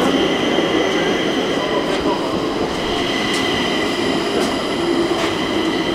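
Stockholm metro train pulling in along the platform. It gives a steady rumble with a high, even whine and a few sharp clicks as the wheels pass over the rails.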